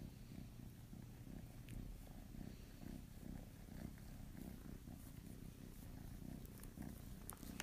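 Kitten purring: a faint, steady low rumble.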